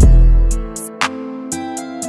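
Background music: a deep bass note at the start that fades out within the first second, under sustained pitched notes and sharp percussion hits.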